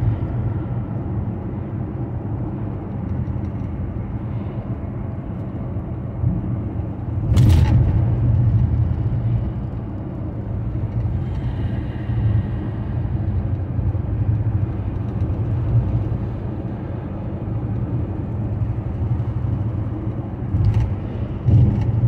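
Steady low road and engine drone of a car being driven, heard from inside the cabin, with one short loud thump about seven and a half seconds in.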